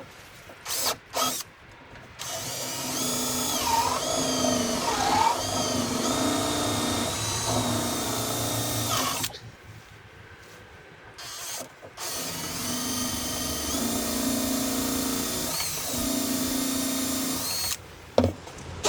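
Power drill running in two long stretches of about seven and six seconds, after a couple of short trigger blips. Its motor whine wavers in pitch as the trigger is eased and squeezed.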